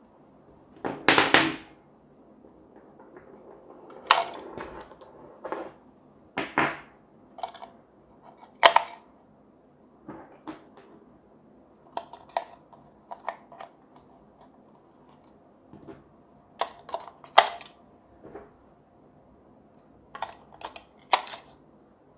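AA batteries and plastic battery-compartment covers being handled and the batteries pressed into the holders of a plastic base: a string of irregular clicks, clacks and knocks.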